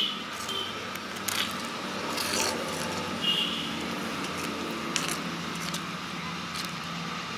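Small spoon scraping and clicking against the inside of an unglazed clay pot as whole small fish are mixed into thick masala paste, with a few short, sharp clicks among the scraping.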